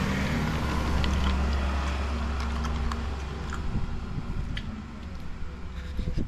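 Low, steady engine hum that dies away about three and a half seconds in, with scattered small clicks and knocks.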